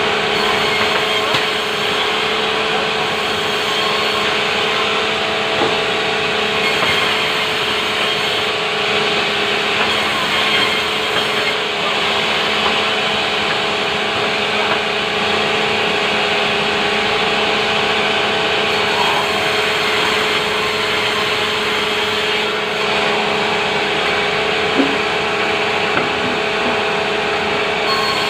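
Sawmill saw running and cutting timber: a loud, unbroken machine noise with a constant whine.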